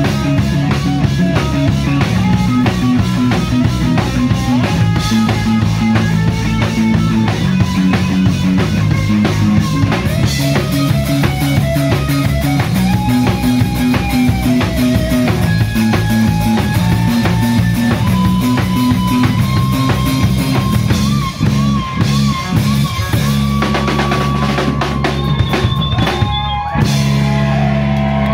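Live rock band playing loud, with a full drum kit driving a fast beat under bass and melodic lead lines. Near the end the band settles into a sustained held chord.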